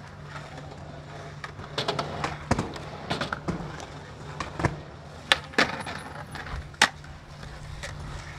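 Skateboard rolling on a concrete skatepark floor, with a string of sharp clacks and rattles from the board and trucks as the skater does flatground tricks. The loudest clack comes near the end. A steady low hum runs underneath.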